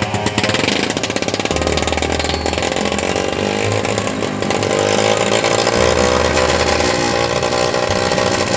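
Old motorcycle engine converted into a log winch, running hard under load with its revs rising and falling.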